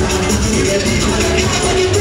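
A live band playing loud amplified music with a heavy low end, heard from within the crowd in front of the stage.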